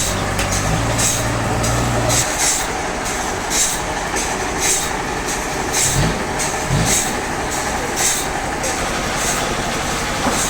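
Sawmill machinery running: steady mechanical noise with a hissing swish repeating about every half second to second, and a low motor hum that stops about two seconds in.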